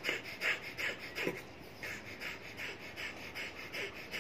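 A man's rapid, forceful exhalations through the nose, about three a second with a brief pause about a second and a half in: a yogic breathing exercise that pushes the breath out in short strokes.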